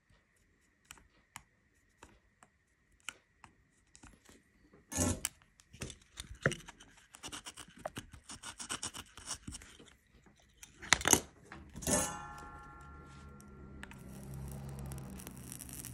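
Small handling noises at a workbench while a tiny circuit board is soldered and glued: light scattered ticks at first over a faint steady high whine, then from about five seconds a run of scraping, rustling and clicking with two louder knocks near the end. A steady hiss comes in over the last couple of seconds.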